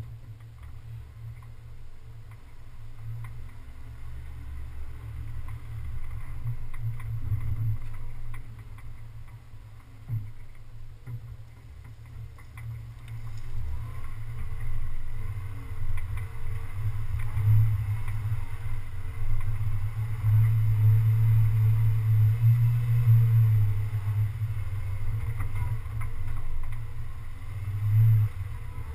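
Low, fluctuating rumble of a 4x4 off-road vehicle crawling along a dirt forest trail, picked up by a camera mounted on its hood, louder from about halfway through.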